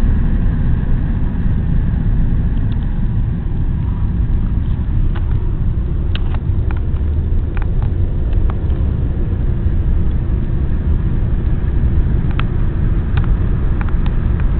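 Steady low rumble of road and engine noise inside a moving car's cabin, with a few faint clicks scattered through it.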